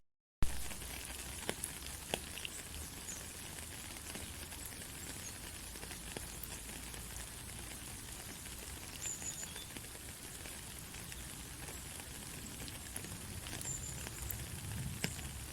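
Steady rain hiss with scattered faint drop ticks. Right at the start the sound cuts out for a moment and comes back with a sharp click.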